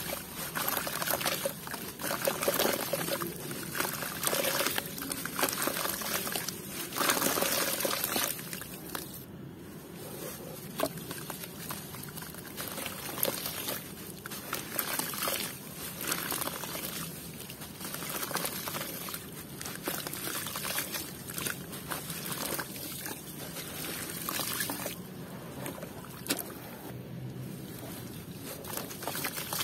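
A wet block of molded red dirt being crumbled by hand into a basin of water: crumbs and clumps dribbling and plopping into the water, with sloshing and small crackles. Busier for the first eight seconds or so, lighter after.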